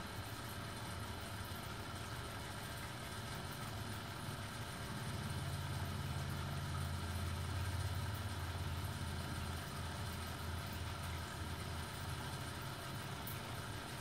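A low, steady mechanical hum like an idling engine, growing louder for a few seconds around the middle and then easing back.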